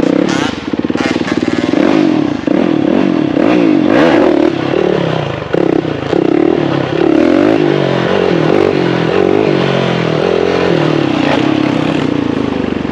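Motorcycle engine running and being revved, its pitch rising and falling repeatedly.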